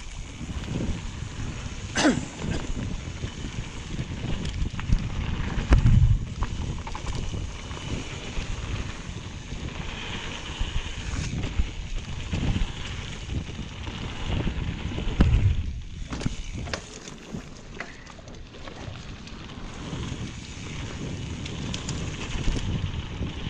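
Wind rushing over the microphone and tyres rolling on a dirt trail as a mountain bike descends at speed, with the bike rattling and a few heavy thumps over bumps in the trail, the loudest about six seconds in.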